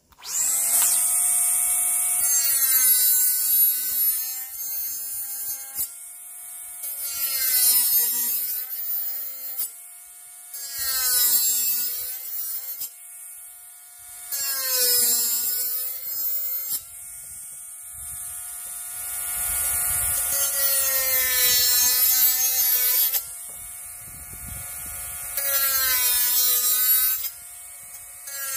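Bosch GWS 12V-76 cordless mini angle grinder running in repeated bouts, its motor whine dropping in pitch each time the disc is loaded into the work and rising again as the load comes off, over a high hiss of grinding.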